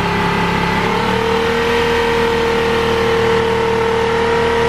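Passenger ferry's engine running steadily, heard inside the cabin; about a second in its pitch steps up a notch and holds there.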